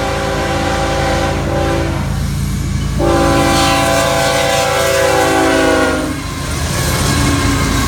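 Air horn of a Florida East Coast GE ES44C4 diesel locomotive sounding for a grade crossing: the end of one long blast, then a second long blast whose pitch drops slightly as the locomotive passes close by. After it, the locomotive's engine and the freight train's wheels rumble steadily past.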